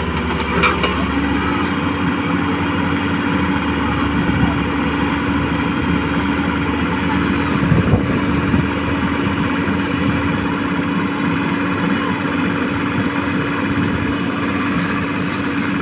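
Motor of a radio-controlled construction model running with a steady hum that settles onto one even pitch about a second in and holds.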